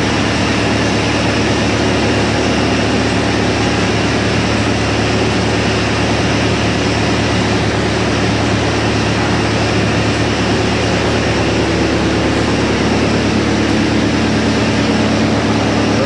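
YGX218 industrial drum wood chipper, driven by a 110 kW electric motor, running empty with a loud, steady hum and whir. No wood is going through it, so there is no chipping.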